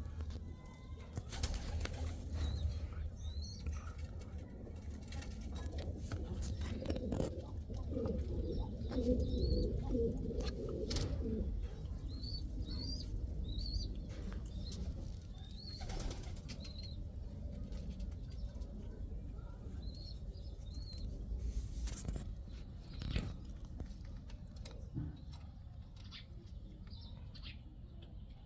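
Pigeons cooing, most strongly in a stretch around the middle, with short high chirps recurring throughout and scattered sharp taps and wing flaps.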